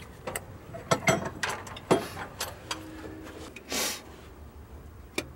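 Clicks and knocks of a plastic engine-oil jug being handled and opened, then a brief rush about four seconds in as oil starts pouring from the jug into a plastic funnel in the engine's oil filler.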